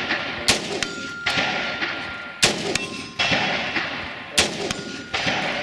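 Three rifle shots about two seconds apart, each followed a fraction of a second later by a steel target ringing and the shot's echo rolling back.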